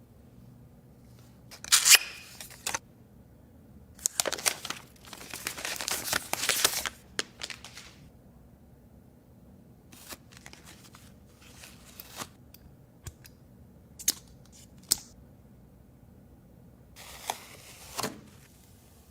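Packaging being torn open and handled: several bursts of tearing and rustling, the longest lasting about three seconds, with scattered light clicks and taps in between.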